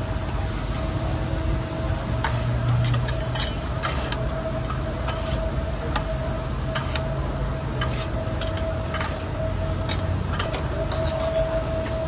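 Two metal spatulas scraping and clinking on a steel griddle as corn kernels are stirred and tossed, with the kernels sizzling on the hot plate. Irregular sharp scrapes and taps over a steady hum.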